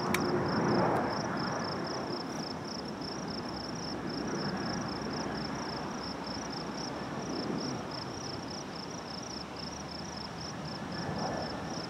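Insects chirping in a steady high-pitched pulse, a few times a second, over a soft background hiss of an open grassy field.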